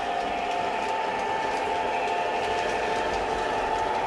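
O gauge model trains running on a layout: the steady whine of locomotive motors and gearing, with faint ticking of wheels over track joints.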